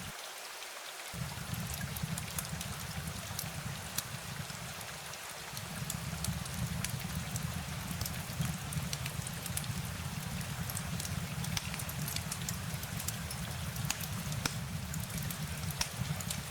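Steady rain falling, with scattered sharp drop ticks over a constant low rumble.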